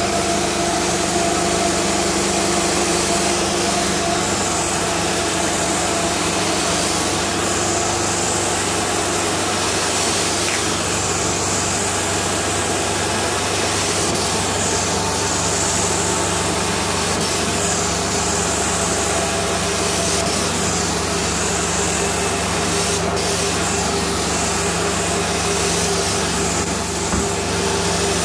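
Mytee 8300EZ two-jet carpet cleaning wand working on a truck-mounted extractor: the machine's engine and vacuum run steadily through the hose, with a hiss of spray and suction swelling with each stroke of the wand over the carpet, about every two to three seconds.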